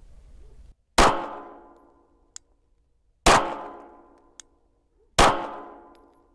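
Three single pistol shots from a Glock, fired slowly about two seconds apart, each trailing off over about a second. A faint tick follows each of the first two shots.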